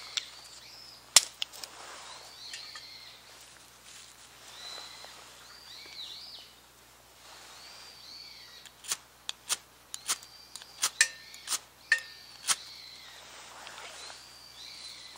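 A ferro rod scraped hard with a striker about a dozen times in quick succession, throwing sparks onto tinder to light a fire. A bird calls over and over throughout, and a single sharp click sounds about a second in.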